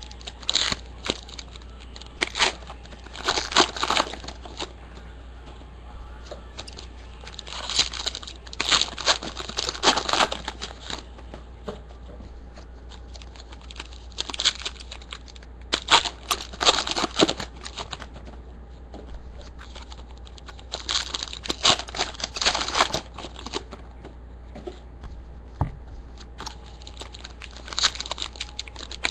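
Foil trading-card pack wrappers being torn open and crinkled, in several bursts of rustling crackle a few seconds apart, over a steady low hum.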